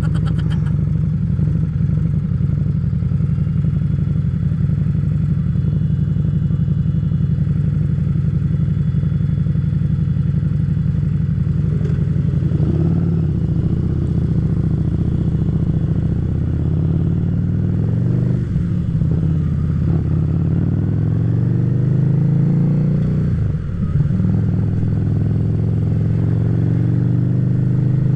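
Harley-Davidson Street Rod's 750 cc V-twin engine running under way, picked up by the rider's chest-mounted camera. The engine note rises and falls several times in the second half, with a brief dip about three-quarters through.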